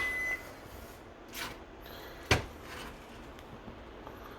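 Kitchen handling sounds of a knife cutting into a baked chicken: a click at the start, soft scraping about a second and a half in, and one sharp knock about two seconds in.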